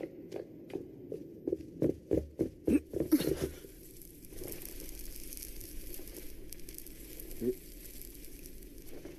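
Running footsteps on a hard floor, about three a second and growing louder, for the first three seconds. After that a steady hiss over a low rumble, with one short soft sound near the end.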